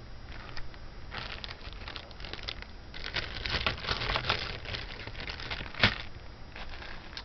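Plastic bags crinkling and jewelry pieces clicking against each other as they are handled, with one sharper click about six seconds in.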